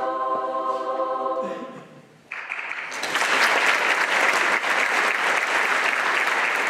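A choir holds the final chord of the song, which fades out about two seconds in; after a brief hush, audience applause breaks out and swells, continuing steadily.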